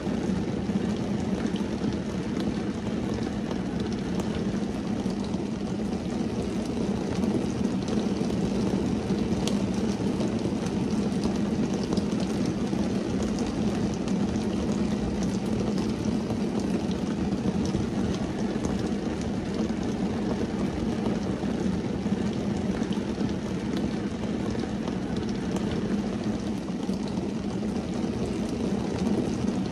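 Steady rain falling on a car's windscreen and roof, heard from inside the cabin as a dense, even patter with faint scattered drop ticks.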